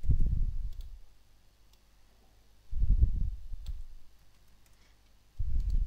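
Computer mouse clicks, scattered and faint, with three louder muffled low thumps: one at the start, one about three seconds in and one near the end.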